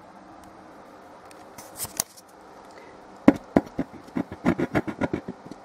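Woofer of a vintage speaker being pushed in and out by hand, giving a quick run of scratchy clicks and knocks, about seven a second, starting a little past three seconds in. The woofer sounds a bit bad, but this may be only because the cone is being pushed at its edge.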